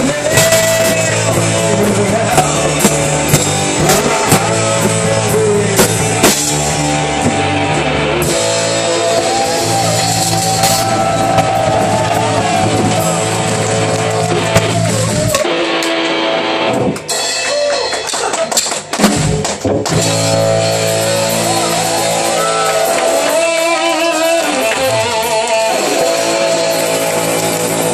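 Live rock band playing: electric guitar and drum kit, with a man singing. A little past the middle the bass end drops out for a few seconds before the full band comes back in.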